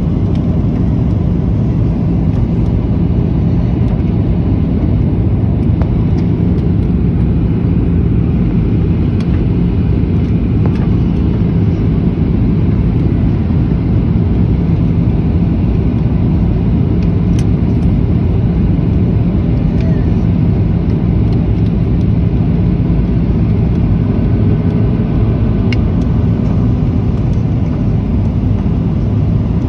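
Steady low drone of a jet airliner's engines and airflow heard inside the cabin, with a constant hum running through it, as the plane descends on approach to landing.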